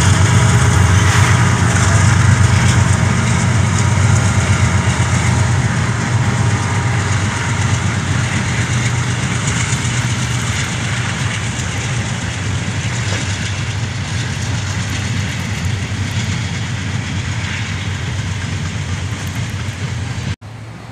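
CSX freight train passing: the diesel locomotives' low engine hum is strong at first and fades as they move away. It leaves the steady rumble of freight cars rolling along the track, which cuts off abruptly just before the end.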